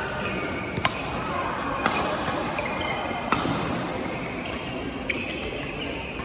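Badminton rally: several sharp racket-on-shuttlecock hits about a second apart, with court shoes squeaking briefly on the court mat in between, in a large echoing sports hall.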